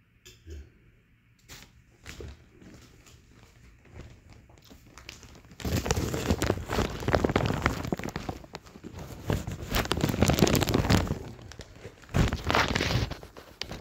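Rustling and crackling handling noise on a phone's microphone, faint at first and turning loud about five and a half seconds in, with a short lull near the end.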